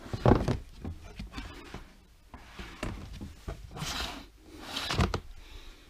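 Plastic storage drawers being pulled open and pushed shut, the plastic scraping as it slides, with a sharp knock just after the start and another near the end.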